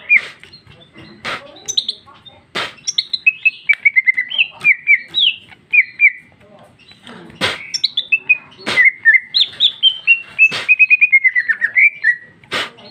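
A caged female greater green leafbird (cucak ijo) singing a fast, varied run of chirping notes, the loud, continuous song that keepers call gacor. The song is broken every second or two by a sharp, loud click.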